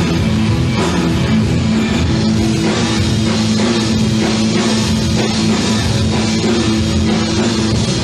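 Live rock band playing an instrumental passage, with electric guitar and drum kit, loud and steady.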